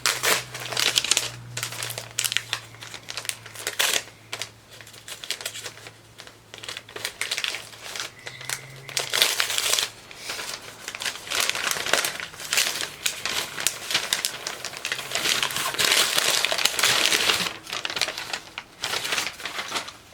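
Paper crinkling and crumpling in irregular bursts as a present is unwrapped.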